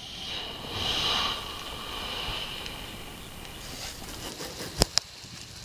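Garden hose spraying water onto a boat trailer: a steady hiss of spray that swells about a second in, then settles, with two sharp clicks near the end.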